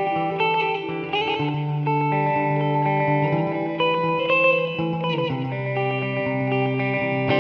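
Fender Jazzmaster Modern Player electric guitar played clean through an Ibanez DE-7 delay pedal and an amp simulation of a Fender Princeton Reverb: chords and single notes ring on, overlapping with their delayed repeats.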